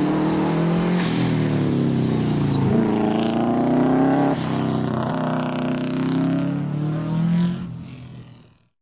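Quad (ATV) engine running under load, its pitch shifting in steps as it changes speed, fading out near the end.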